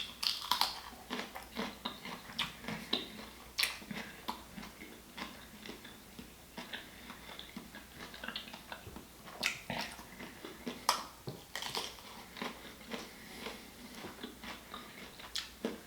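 Close-miked eating sounds of seafood-boil food in butter sauce: wet chewing and lip-smacking, a steady string of short clicks and smacks with a few louder ones spread through.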